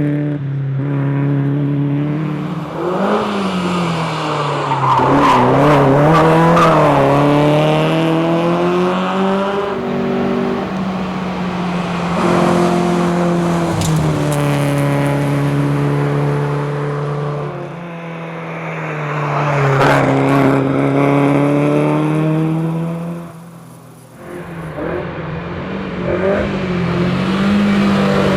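Volvo 122S rally car's four-cylinder engine driven hard, its pitch rising and falling with throttle and gear changes. It drops away briefly about three-quarters of the way through as the driver lifts off, then pulls again.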